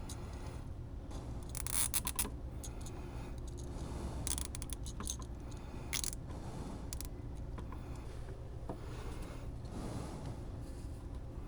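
A few short scraping and rustling sounds, the loudest about 2 seconds in, over a steady low hum.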